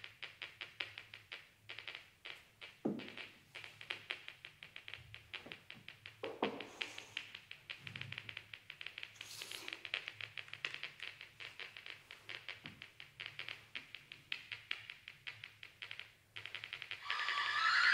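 Fast, uneven stream of soft clicks, many a second, from Exo.Rosie, a wearable instrument, with a few brief louder sweeps scattered through; a louder sustained sound comes in near the end.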